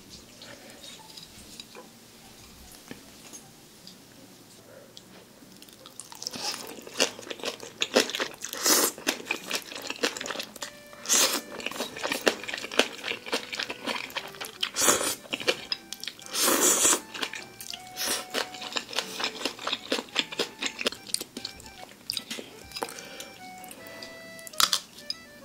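Close-miked eating: black-bean-sauce ramen noodles slurped in several loud sucking bursts amid wet chewing, then kimchi bitten and chewed with crunching. Light background music runs underneath.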